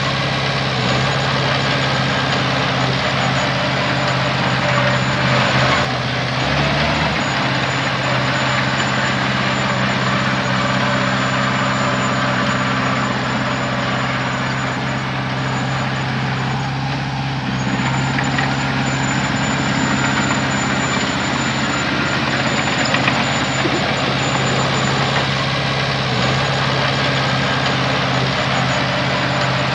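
Heavy diesel engine of earthmoving machinery running steadily, a constant low drone with a rough mechanical noise over it.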